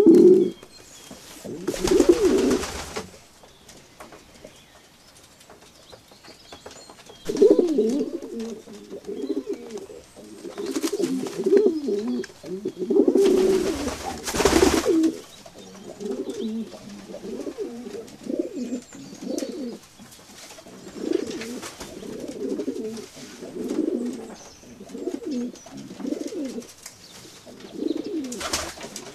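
Pigeons cooing: a run of repeated low coos, with two brief noisy rustling bursts, one near the start and one about halfway through.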